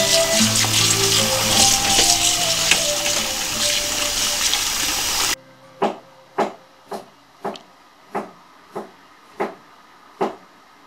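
Tap water runs over chicken pieces being rinsed by hand in a stainless steel colander, with background music over it. A little over five seconds in, both cut off. A series of about eight short, sharp sounds follows at an even pace, a little under two a second.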